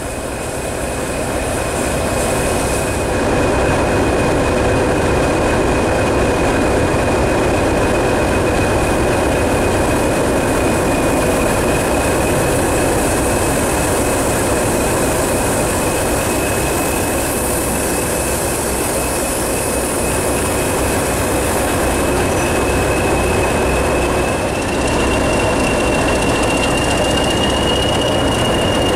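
Diesel locomotive engine running close by, a steady mechanical din with a high whine over it; the whine steps up slightly and the sound grows a little louder about 24 seconds in. A steam locomotive rolls slowly past on the adjacent line.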